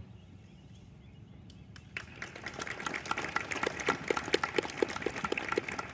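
Small crowd clapping in the open air, starting about two seconds in after a quiet moment and building to steady applause.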